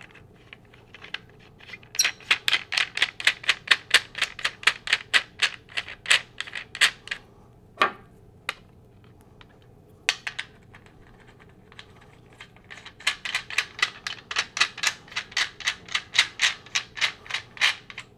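Quick runs of sharp clicks, about five a second, as a threaded foot is screwed by hand onto a leg of a Michell ORBE turntable's spider base. There are two runs of a few seconds each, with a few single clicks in the pause between.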